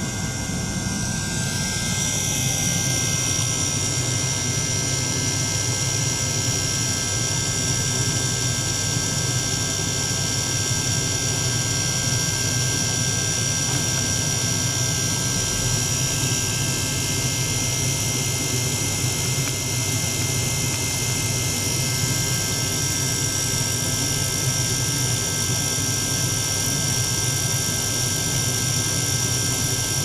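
Small liquid-circulation pump running steadily, pumping water through tubing into a stainless ultrasonic tank. A steady high whine joins in about two seconds in.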